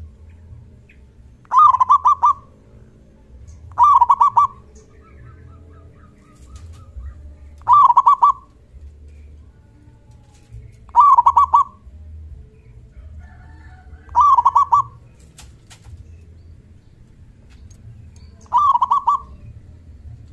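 Zebra dove (perkutut) giving its loud trilled call six times, each a burst of rapid notes lasting under a second, a few seconds apart.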